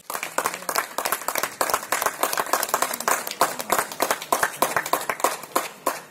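Audience applauding, dense hand clapping that thins to more separate claps in the second half.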